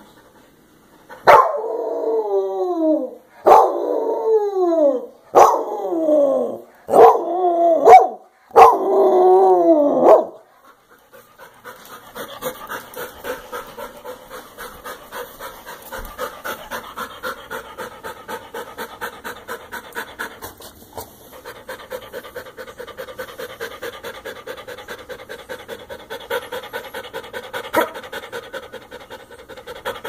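A clingy dog crying at a door: five loud drawn-out cries in the first ten seconds, each starting sharply and falling in pitch, then quick rhythmic panting, several breaths a second, for the rest.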